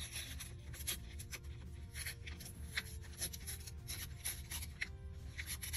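Sheet of wrapping paper rustling and crinkling in irregular bursts as hands rub and handle it, with soft background music underneath.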